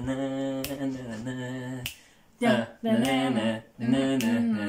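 Voices singing a tune with held notes, a short break just before the midpoint, and a few sharp finger snaps over it.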